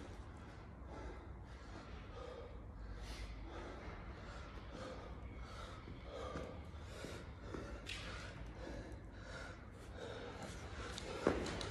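A man breathing hard and fast after a set of barbell work, a quick, noisy in-and-out breath about every second. Near the end a single sharp knock.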